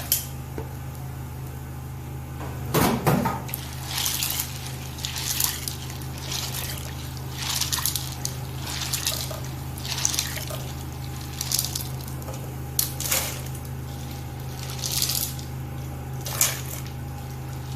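White beans being washed by hand in a bowl of water: short swishes and splashes of water about once a second, over a steady low hum.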